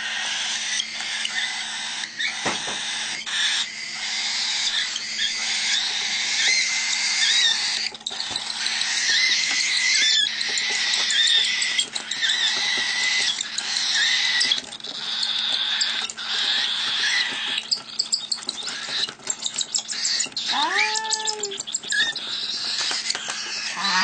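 Cockatiel chicks giving raspy, hissing food-begging calls as they are hand-fed, a continuous chattering. About three-quarters of the way through come a few short calls that slide down in pitch.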